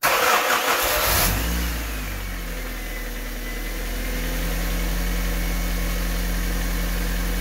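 Honda D16Y8 1.6-litre SOHC VTEC four-cylinder starting up. It is loudest in the first second or so as it catches, then settles into a steady idle.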